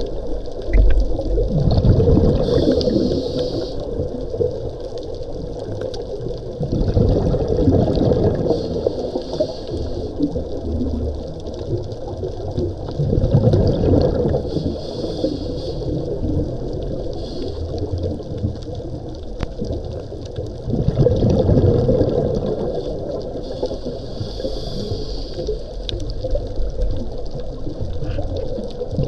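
Scuba diver breathing through a regulator, heard underwater: a hiss on each inhale and a rush of bubbles on each exhale, in a slow, even cycle of about one breath every six seconds.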